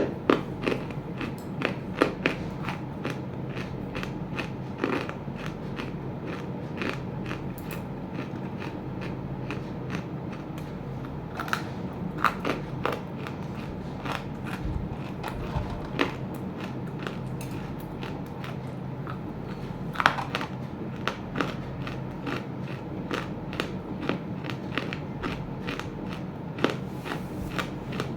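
Chunks of roasted clay crunching in many short, sharp, irregular cracks, with a few louder snaps along the way, over a steady low hum.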